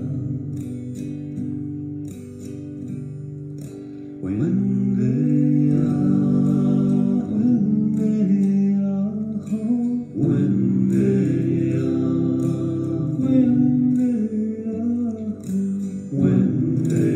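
A man sings a Cree morning song to his own acoustic guitar accompaniment. The guitar plays quietly on its own at first, and the voice comes in about four seconds in, singing in long phrases that start again around ten seconds and near the end.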